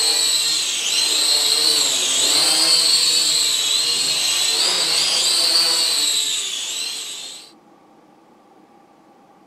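SAN HUAN SH5W toy quadcopter's electric motors and propellers whining at a high pitch, the pitch wavering up and down as the throttle changes. The motors wind down and stop about seven and a half seconds in.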